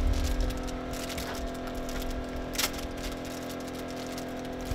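A person chewing a bite of sablé biscuit, with a few faint crunches and clicks, over a steady low hum.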